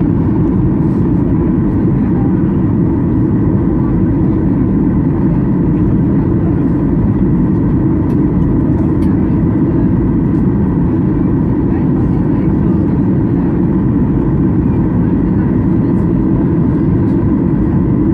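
Steady low cabin noise of an airliner in flight: engine and airflow noise, even and unchanging, with a faint steady tone above it.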